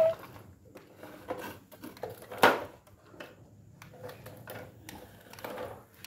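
Plastic toy trucks and a small remote-control car clicking and rattling on a tile floor, with one loud sharp knock about two and a half seconds in.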